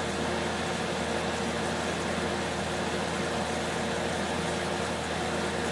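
Magic Chef dehumidifier running with its compressor and fan on: a steady hum with a few held low tones under a wash of fan noise. The compressor has just restarted after one of its shut-offs; it keeps cutting out every couple of minutes and waiting on its protection delay before coming back on.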